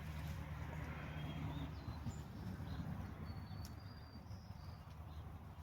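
Outdoor farm ambience: birds giving several short, high chirps over a steady low hum.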